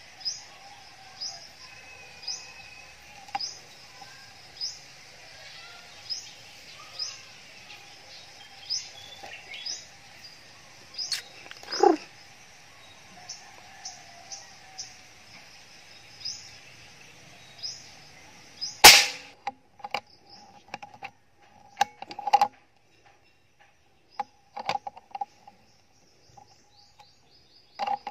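Short high bird chirps repeating about once a second, then a single sharp shot from the scoped rifle about two-thirds of the way in, followed by a few scattered clicks and rustles.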